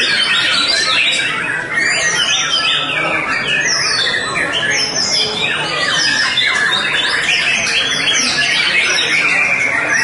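White-rumped shamas in full song, a dense, unbroken stream of fast whistles, rising and falling glides and chattering phrases overlapping one another.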